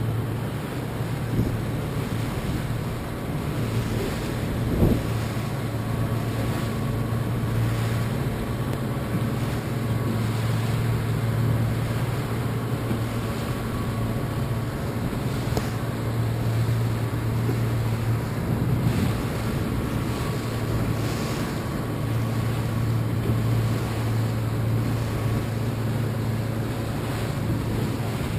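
Motor tender's engine running with a steady low hum, under wind on the microphone and choppy water splashing. A single thump stands out about five seconds in.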